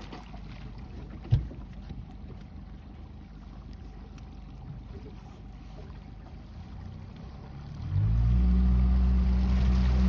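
Motorboat engine running low, with a single knock a little after a second in. About eight seconds in it opens up and runs much louder as the boat starts towing the inflatable tube.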